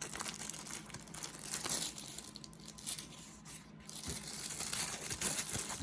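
Thin plastic bag crinkling and rustling irregularly as a folding knife is handled inside it and pulled out.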